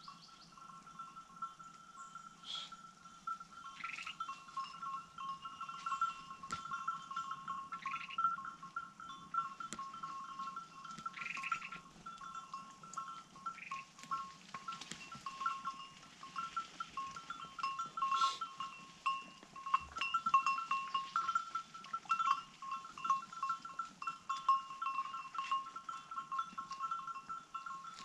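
Outdoor animal chorus: a continuous, rapidly pulsing two-note trill, with short, higher bird calls breaking in every two to four seconds.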